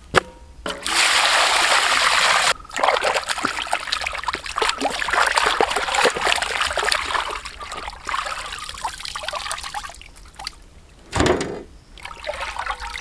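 Water rushing steadily into a metal tray for about two seconds, then splashing and sloshing as a raw beef leg is rubbed and turned by hand in the water. A dull thump near the end.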